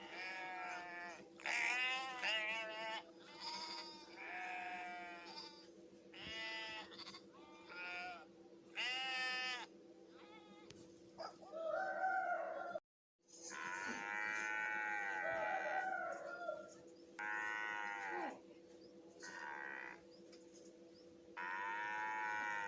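Sheep and lambs bleating: about a dozen separate wavering bleats, with a short break of silence about halfway through. A faint steady hum runs underneath.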